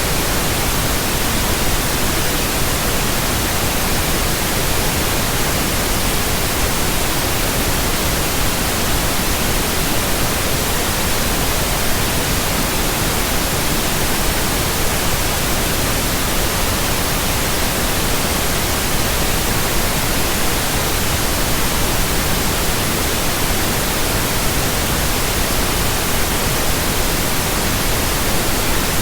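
Steady pink noise: an even, unchanging hiss spread across all pitches, played as a relaxation and sleep sound.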